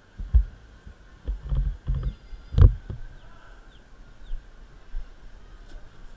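Dull thumps and knocks as a person climbs into the seat of a stationary two-seat go-kart, with its engine off. The loudest is a sharper knock about two and a half seconds in, and a few softer bumps follow.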